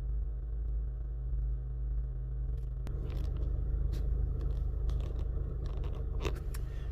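Chevy Cobalt four-cylinder engine idling with a steady low hum and a slight misfire, from a cylinder 3 misfire. Light clicks and scrapes join from about three seconds in.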